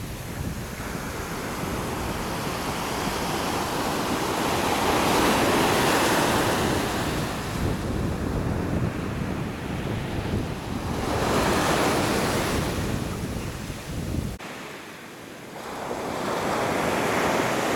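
Pacific surf breaking and washing up a sand beach, swelling loudest three times as waves come in, with wind rumbling on the microphone. The wind rumble drops out suddenly about three quarters of the way through while the surf goes on.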